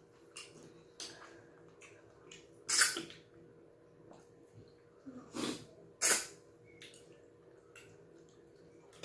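Close-miked eating sounds of fufu and light soup eaten by hand: three loud, short slurps about three, five and a half and six seconds in, with soft mouth clicks and smacks between.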